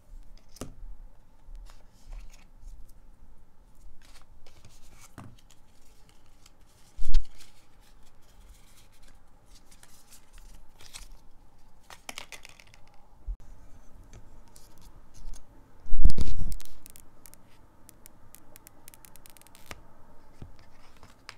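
iPhone 12 box inserts and paper wrapping being handled and peeled: scattered rustling, scratching and light tearing of paper and card. Two loud dull thumps stand out, a short one about seven seconds in and a longer one about sixteen seconds in.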